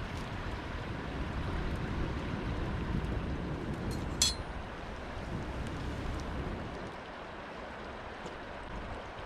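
Steady rushing outdoor background noise with one sharp metallic clink about four seconds in.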